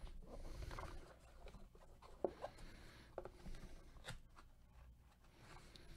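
A cardboard trading-card box being opened by gloved hands and its stack of cards handled: faint rubbing and scraping of card and cardboard, a little louder in the first second, with a few light ticks.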